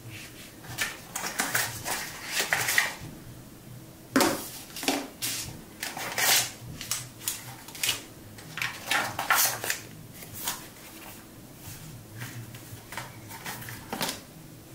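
Paper leaflets, small plastic bags and a cardboard box being handled and set down on a table: irregular rustles, crinkles and light taps.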